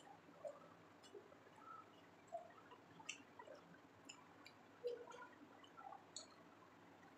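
Faint, irregular eating sounds: fingers mixing biryani rice on a paper plate, soft chewing and small mouth clicks.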